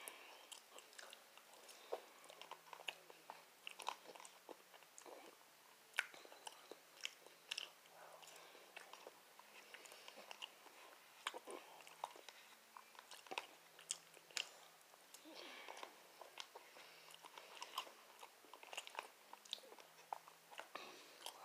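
Close-up eating sounds: chewing with irregular small clicks and scrapes of a metal fork picking food out of a plastic container.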